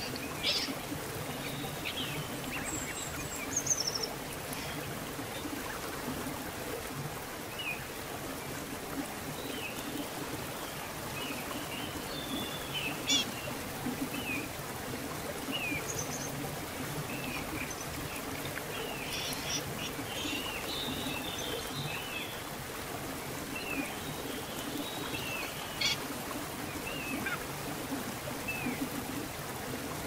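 Shallow rocky stream running steadily, a constant babble of water over stones. Small birds chirp in short calls throughout, with one high falling whistle about three seconds in.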